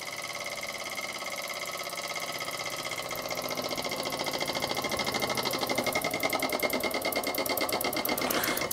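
Jensen model 85 toy steam engine's single oscillating cylinder running fast, an even rapid chatter that grows gradually louder. It is running on the boiler's remaining steam with the burner taken out, and the light engine vibrates on the tabletop.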